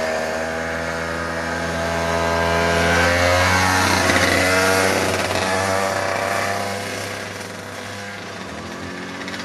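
Parilla Leopard 125cc two-stroke kart engine running as the kart passes close by, growing louder to a peak about four seconds in, then fading as it pulls away.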